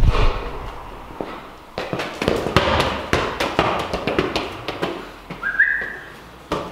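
Irregular footsteps, knocks and taps on a hard floor and wooden frame, with a short rising whistle about five and a half seconds in.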